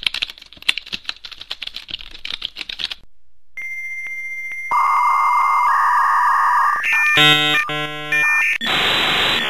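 Rapid computer keyboard typing for about three seconds. Then a dial-up modem handshake: a steady high beep, a louder lower tone, a burst of chopped multi-tone chirps and then hissing static.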